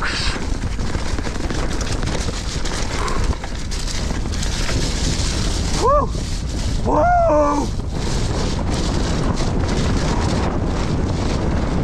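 Enduro mountain bike descending a rough, muddy forest trail, heard from a camera riding with it: steady wind rush on the microphone over constant rattling and knocking of the bike on rocks and roots. About six seconds in and again a second later come two short pitched cries that rise and fall.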